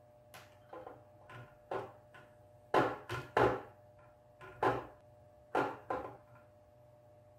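Irregular light knocks and taps of a Gigabyte RX570 graphics card being handled, with fingers pressing thermal pads onto its circuit board and the board shifting against the table. The louder knocks come between about three and six seconds in.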